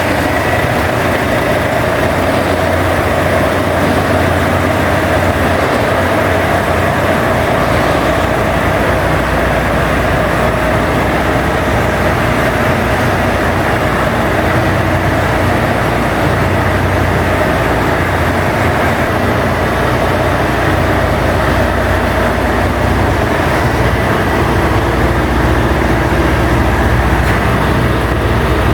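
Scania 143's V8 diesel engine running steadily.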